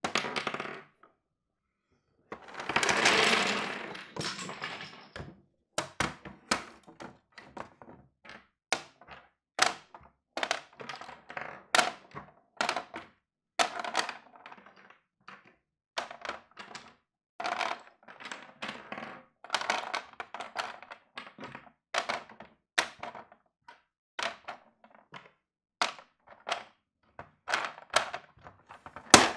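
Chess pieces being handled on a board: a short rattle, then a longer clattering jumble of pieces, followed by a long run of single sharp knocks as pieces are set down one after another, about one or two a second.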